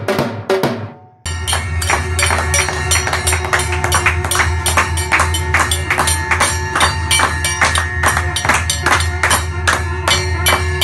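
A dhol beaten a few times, each stroke fading. From about a second in, a steel thali plate is struck with a spoon in a steady run of metallic clinks, about three a second, over a steady low hum.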